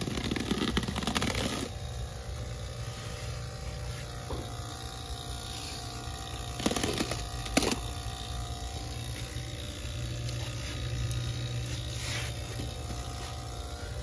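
Steady low machine hum, with rustling and short scrapes from hands handling and taping foam pipe insulation on a refrigerant line: a longer stretch of rustling at the start and brief scrapes about seven seconds in and again near the end.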